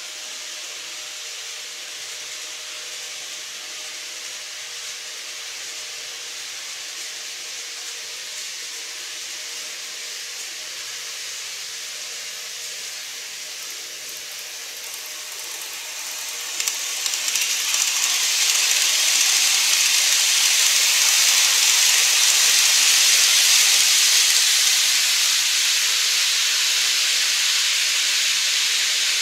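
N-scale model trains, a Micro Ace Keio 9000 series and a TOMIX Toei 10-300, running on the track: a steady hiss of wheels and motors that grows much louder about halfway through as the trains come close.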